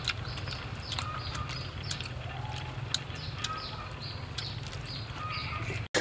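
Small birds chirping over and over in short, falling high calls, over a steady low hum. Scattered sharp clicks come from chewing and handling crispy fried chicken.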